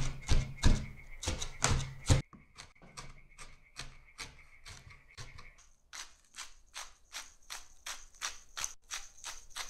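Large kitchen knife chopping parsley, green pepper and onion on a wooden cutting board, about three strokes a second. The strokes are heavy, with a low thud, for the first two seconds, then turn lighter and quieter.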